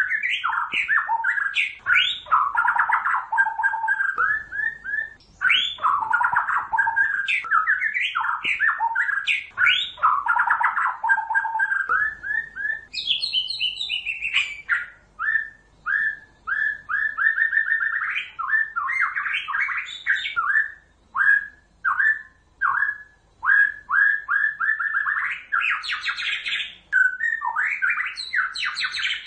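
White-rumped shama song: rapid, varied whistled and chattering phrases, almost unbroken at first, then coming in shorter bursts with brief pauses. It is decoy song, played to lure shamas into a trap.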